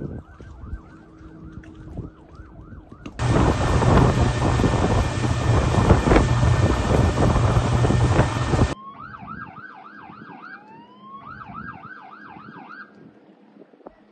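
Police siren yelping in fast, repeating rising sweeps. A few seconds in it is cut off by a loud rush of wind and engine noise from a boat running at speed, which stops abruptly after about five seconds. Then the siren yelps again and fades out near the end.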